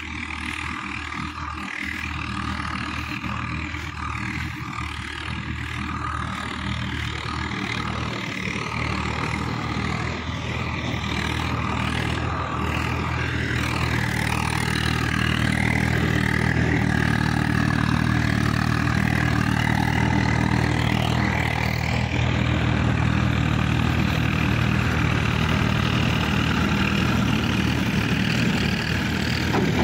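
Diesel tractor engine running steadily in a field, growing louder about halfway through as a tractor comes closer.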